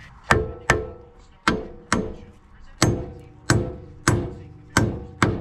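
A hammer striking steel front suspension parts, about nine hard blows at an uneven pace, each ringing briefly. They are an attempt to shock a ball joint's tapered stud loose from the knuckle, and the joint does not break free.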